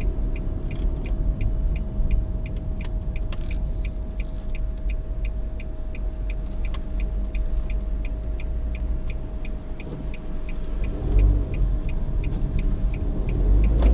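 Car cabin with a steady low engine and road rumble, and the turn signal's relay ticking evenly about three times a second while the car makes a right turn.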